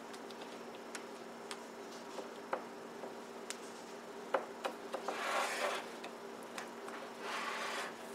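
Silicone spatula spreading thick cake batter in a glass baking dish: scattered light taps and clicks against the glass, and two longer scraping strokes, about five seconds in and near the end, over a faint steady hum.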